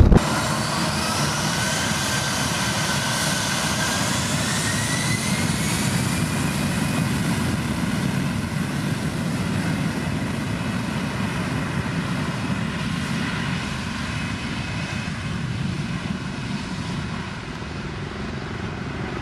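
Airbus A320 jet engines whining at taxi power as the airliner rolls and turns on the runway, over a steady rumble. The whine rises in pitch over the first few seconds, and the sound slowly fades as the jet moves away.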